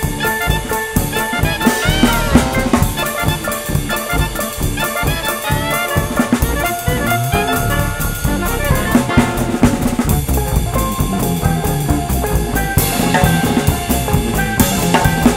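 Live drum kit (Whitney drums with Paiste cymbals) played along to an upbeat jazzy backing track led by brass, with steady cymbal and drum strokes. Cymbal wash grows brighter over the last couple of seconds.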